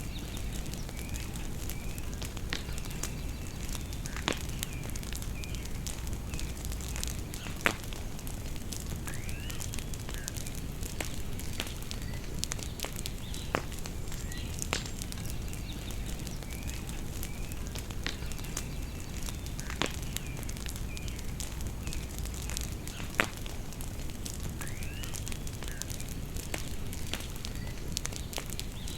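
Outdoor bonfire crackling steadily with many small pops and a handful of louder, sharp pops, while birds chirp in short high calls.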